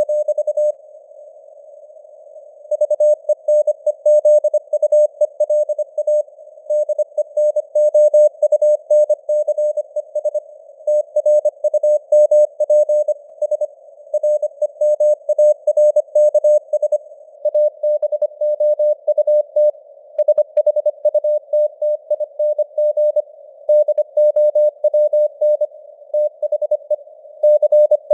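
Morse code at 25 words per minute, sent as a single steady tone keyed on and off in dots and dashes over a narrow band of simulated radio hiss, spelling out news headlines. The signal rises and falls in strength like a fading shortwave signal (QSB), and there is a pause of about two seconds near the start.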